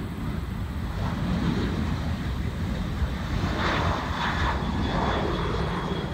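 A Boeing 737-800's twin CFM56 turbofan engines at takeoff thrust as the jet lifts off and climbs away: a steady low rumble of jet noise that grows fuller about halfway through, with a faint high whine.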